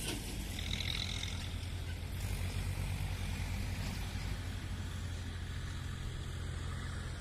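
Steady low engine-like rumble, with a faint brief high whistle about a second in.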